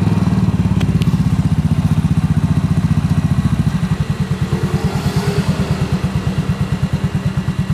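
Yamaha Mio J scooter's freshly rebuilt single-cylinder four-stroke engine idling with a steady, even firing rhythm, a little fuller for the first few seconds before settling. It runs smoothly ("halus") now that the worn, loose piston behind its earlier rough running has been replaced with a new original one.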